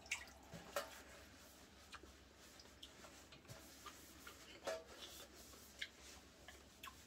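Faint, scattered clicks and taps of chopsticks and spoons against bowls and plates during a meal, irregularly about a second apart, the loudest just under five seconds in.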